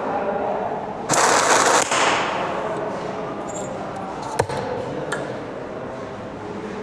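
Oxy-acetylene welding torch flame hissing as oxygen is let in to mix with the acetylene: a loud rush of gas for most of a second about a second in, then two sharp cracks a little under a second apart.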